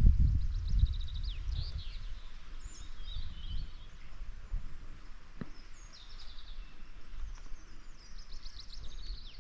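A small songbird singing several phrases of quick repeated high notes, over a low, uneven rumble that is loudest in the first second.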